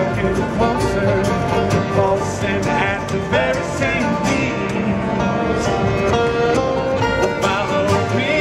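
Live acoustic bluegrass band playing: banjo, mandolin and acoustic guitar picking quick plucked notes over an upright bass.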